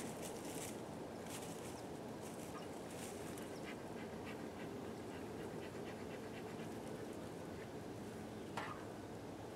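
Honeybee colony humming steadily while a bee smoker's bellows puffs smoke into the hive, several short hissing puffs in the first few seconds and another near the end.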